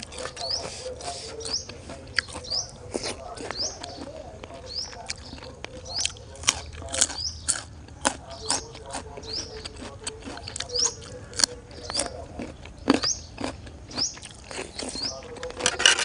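Close-up crunching and chewing of raw carrot sticks, a run of sharp irregular crackles and crunches. Behind it a bird gives a short rising chirp about once a second.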